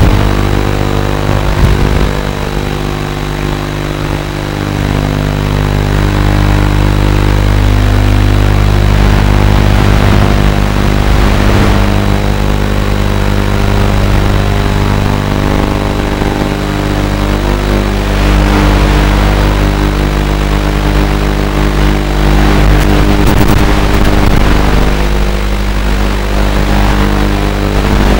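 QAV210 FPV racing quadcopter's motors and propellers running, picked up by its onboard camera: a loud, steady buzz of several fixed tones, with a hiss that swells and fades every few seconds.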